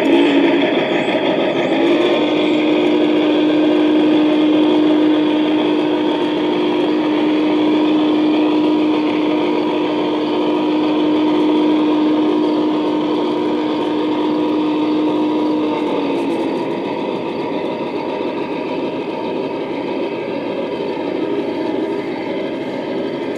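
Onboard sound system of a G-scale model steam locomotive running on a garden railway. It plays engine sounds over a steady background, with one steady tone held from about two seconds in until about sixteen seconds in.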